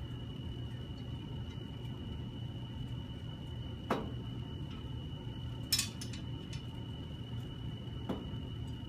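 Several small clicks and clinks of wire and hand tools being handled, the sharpest about two-thirds of the way in. Under them runs a steady low room hum with a faint steady high whine.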